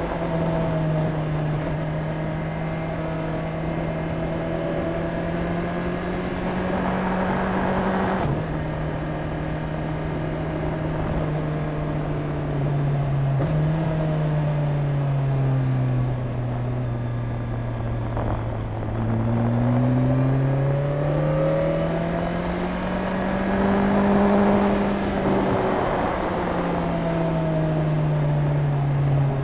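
BMW K1300S motorcycle's inline-four engine running at speed, its pitch rising and falling as the rider accelerates and eases off through the bends, with a sudden drop about eight seconds in as it shifts up a gear. Wind and road noise run underneath.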